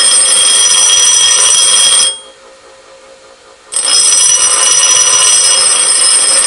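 Twist drill being ground on a bench grinder's coarse aluminum oxide wheel, a loud steady hiss with high ringing tones as the relief behind the cutting lip is ground. The grinding stops about two seconds in and starts again a second and a half later as the drill is touched back to the wheel.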